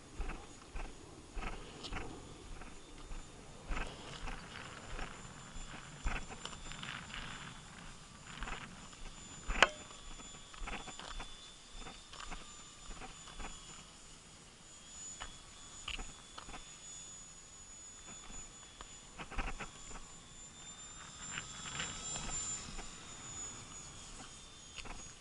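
Faint, steady high whine of a distant electric RC model plane's motor and propeller overhead, swelling a little near the end. Under it, a low rumble of wind on the microphone and scattered sharp clicks and knocks, one louder knock about ten seconds in.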